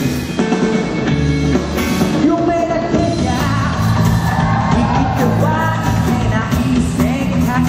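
Rock band playing live: a male singer sings into a handheld microphone over electric bass, electric guitar and drums.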